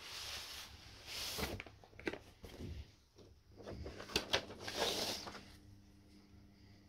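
Paper inner sleeve rustling as a vinyl LP is slid out of it, in a few short rustles with some light clicks from the record and sleeve being handled.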